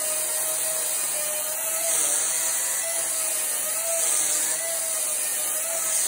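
Einhell 36 V cordless electric chainsaw running, its chain skimming across the face of a wooden tree-trunk slab to plane it flat. A steady motor whine with a hiss of cutting, swelling slightly about every two seconds as the bar passes over the wood.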